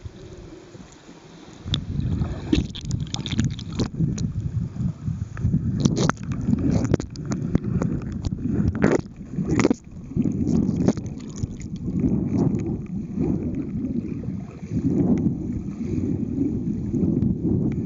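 Muffled, choppy water rumble picked up by a camera in an underwater housing as the swimmer moves through the water, starting about two seconds in, with a few sharp clicks and knocks scattered through it.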